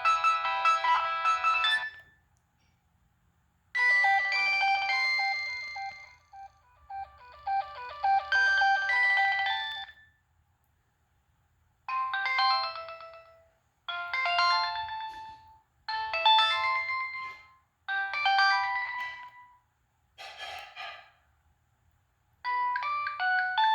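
Nokia 6015i preloaded ringtones playing one after another, synthesized melodies with several notes at once. The end of one tune gives way, after a short pause, to a six-second melody. Then a short phrase rings about five times with brief gaps, a short burst follows, and another tune starts near the end.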